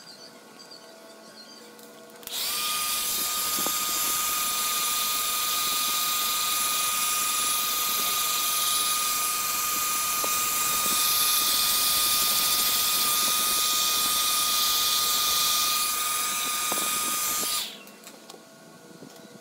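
Handheld hair dryer running, blowing air with a steady high motor whine; it switches on about two seconds in and cuts off shortly before the end.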